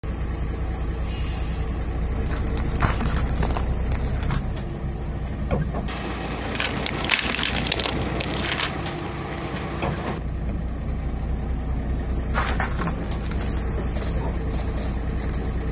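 Truck tyre rolling over plastic Tic Tac mint boxes, crushing them with sharp cracks and crunches that come in several bursts, thickest in the middle. The truck's engine runs with a low steady rumble underneath.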